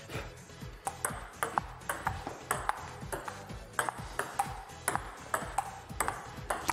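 Table-tennis rally: a ping-pong ball clicking quickly and irregularly off the paddles and the table, several hits a second. Background music plays underneath.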